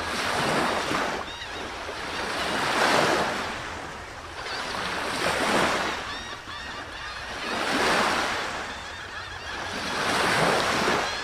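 Waves washing in, a rushing swell about every two and a half seconds, with small birds chirping faintly over it.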